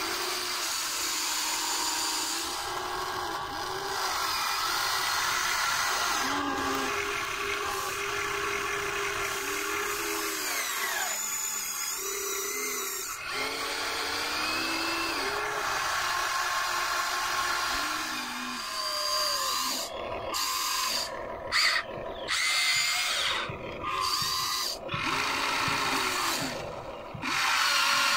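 Huina RC excavator's electric motors and gearboxes whining as the boom, arm and bucket move, the pitch gliding up and down as each motor starts and stops. In the last several seconds the whine comes in short stop-start runs.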